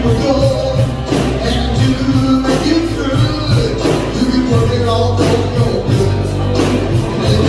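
Live band playing an instrumental passage of a gospel worship song, with held bass notes and a steady beat.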